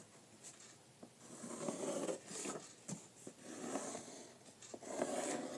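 A child's soft breathing close to the microphone, a few slow breaths, with faint scratches and small clicks from a felt-tip marker drawing on paper.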